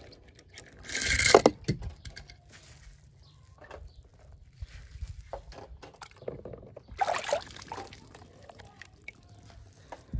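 Water splashing twice as small toy cars drop into it: a loud splash about a second in and another about seven seconds in, with small clicks and knocks of the toys in between.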